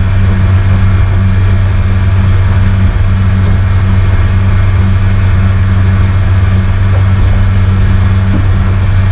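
A boat's outboard motor running steadily under way, a constant low drone with the rush of wind and water beneath it.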